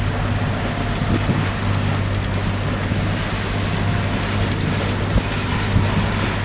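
Sailing catamaran underway: a dense, steady rush of wind and water over a constant low hum.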